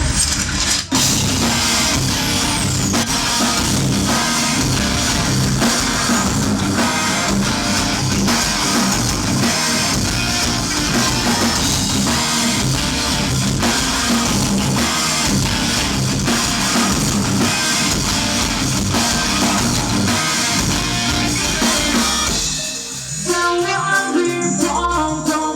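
Live rock band playing at full volume: distorted guitars, bass and a drum kit, with singing. About a second in there is a brief break before the full band comes in, and near the end it drops to a thinner passage.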